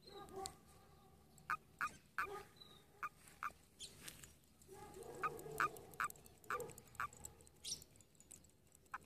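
A frog calling in short, sharp notes at an irregular pace, with a longer, lower call about five seconds in; the calls sound strangely human-like.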